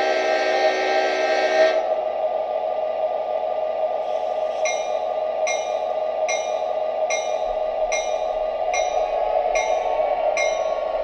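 Lionel O gauge diesel locomotive running on its track with its onboard sound effects. A horn blast plays for about the first two seconds over a steady engine hum, then a bell rings about twice a second from about four seconds in.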